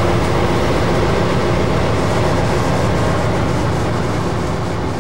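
Diesel locomotive running along the main line, heard from its cab: a steady engine drone with rail and wheel noise, easing off slightly near the end.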